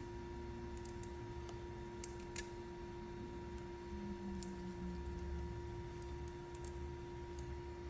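Scattered light clicks, one sharper about two and a half seconds in, over a steady low hum.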